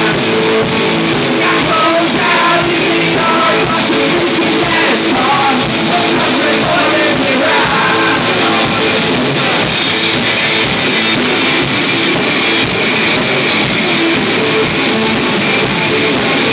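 Live rock band playing loudly, with drums, electric guitar and a lead vocal.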